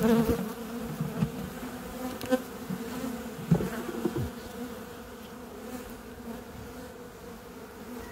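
Buckfast honeybees humming steadily around an opened hive that is being disturbed for cleaning. A few short knocks, the clearest at the start and about three and a half seconds in, come from the wooden frames being handled.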